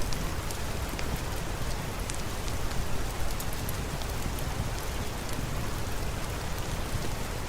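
Steady rain, an even hiss with scattered sharp ticks of drops.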